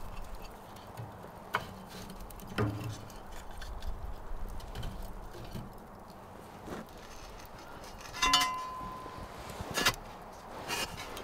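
Scattered light knocks and clicks of things being handled, with one sharper metallic clink about eight seconds in that rings for about a second.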